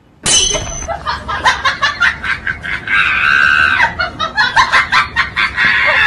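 Loud, high-pitched laughter: a quick run of cackles with a drawn-out shriek about three seconds in.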